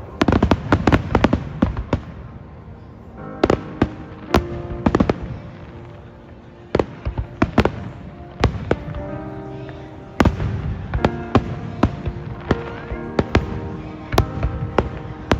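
Aerial fireworks going off in rapid volleys of sharp bangs and crackles, coming in several clusters, with music playing underneath.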